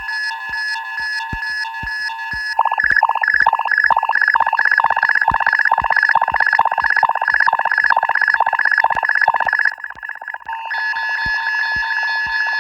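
Synthesized science-fiction alarm: layered electronic tones pulsing in a fast repeating pattern over regular low ticks. About two and a half seconds in it switches to a louder warbling pulse, which drops out near ten seconds before the steadier pulsing tones return.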